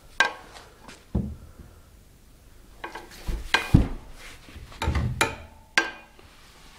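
Bike parts being handled and knocked together: a string of sharp clicks and knocks, some with a brief metallic ring, in three clusters.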